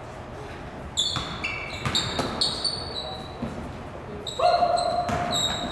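Sneakers squeaking sharply and repeatedly on a hardwood gym floor, with a basketball bouncing, during play. Near the end a steady held tone sounds for about a second.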